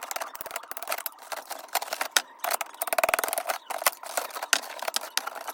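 Ice being scraped and chipped out of a fridge's frozen-up freezer compartment: a dense, irregular run of sharp scrapes and clicks.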